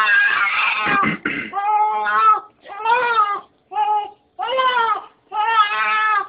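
Newborn baby crying in a run of about six short wails, one after another with brief gaps for breath. About a second in, one wail breaks into a rough, noisy catch.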